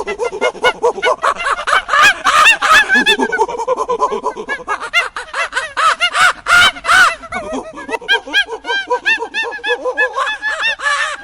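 Animal calls: a rapid, overlapping chatter of short, high-pitched, arching calls, several a second, that stops abruptly about a second after the end.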